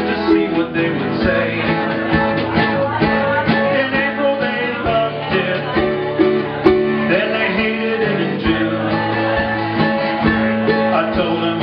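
Small live band playing a country-style tune: acoustic guitars strummed and picked over a drum kit.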